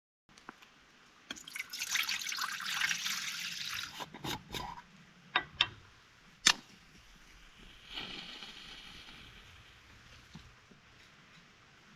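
Water trickling and splashing for a few seconds, then several sharp drips or clicks, and a second, fainter stretch of trickling.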